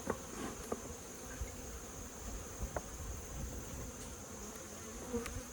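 Honeybees buzzing around an opened hive, a steady low hum of many bees, with a few light clicks about a second and three seconds in.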